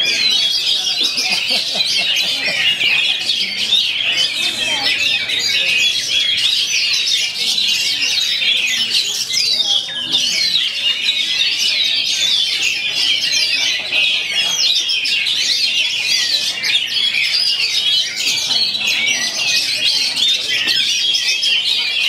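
Many caged songbirds, oriental magpie-robins (kacer) among them, singing at once in a singing contest: a dense, continuous chorus of overlapping fast chirps and trills.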